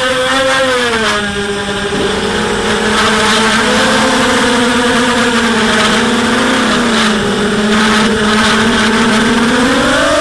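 A ZMR250 racing quadcopter's four 2204/2300kv brushless motors with 5045 propellers, running on a 4S battery and heard from the onboard camera: a loud buzzing whine whose pitch sinks and swells with the throttle, dipping about a second in and climbing sharply at the end.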